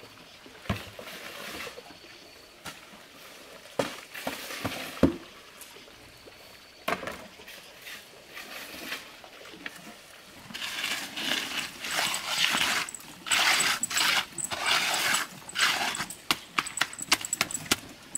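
A few scattered knocks and clunks, then from about ten seconds in, a hand float scraping over wet concrete in quick repeated strokes as the surface is smoothed.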